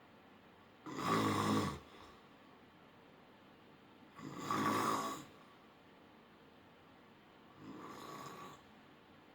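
Snoring: three snores about three and a half seconds apart, each lasting about a second, the last one softer.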